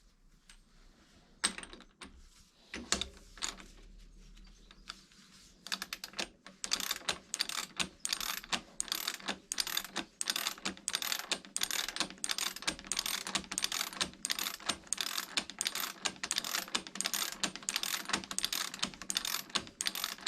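A ratchet wrench driving a splined bottom bracket tool, clicking rapidly in steady runs as the bottom bracket cup is wound into the frame's threads. It starts about six seconds in, after a few separate knocks of the tool being handled.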